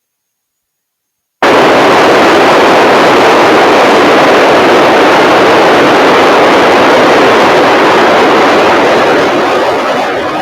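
Open-squelch receiver static from an Icom IC-705 transceiver: a loud, even hiss that cuts in suddenly about a second and a half in and eases off near the end.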